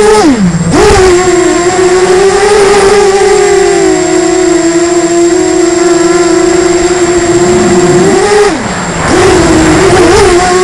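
FPV quadcopter's electric motors and propellers whining close to the onboard camera. The pitch drops sharply as the throttle is cut near the start and again about eight and a half seconds in, then spools back up each time.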